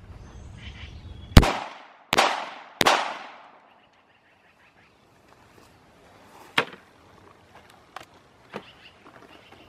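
Three 9mm full metal jacket shots from a Glock 19 pistol, a little under a second apart, each trailing off in a short echo. A single sharp click follows a few seconds later.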